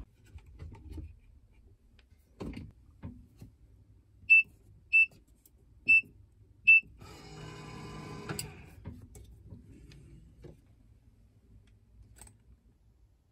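Electronic keypad safe: four short, high beeps as its buttons are pressed, then a whir of about a second and a half as its motorised lock works, with a few knocks and clicks of the door and handling around it.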